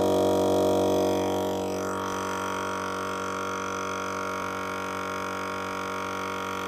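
EZ Flate M.O.A.B. dual-cylinder air compressor running with a steady droning hum while inflating a truck tyre. Its tone shifts and it settles a little quieter about two seconds in.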